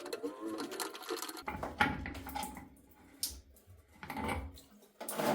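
Irregular clicks, knocks and scraping as a shower head is handled and unscrewed from its threaded shower arm, with a sharper knock about two seconds in and another about three seconds in.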